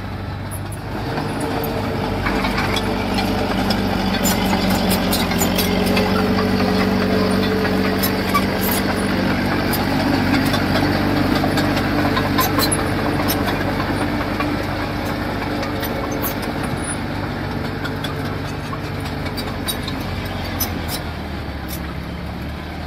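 Diesel engine of heavy construction machinery running steadily, growing louder about a second in and dropping back slightly near the end, with scattered light clicks.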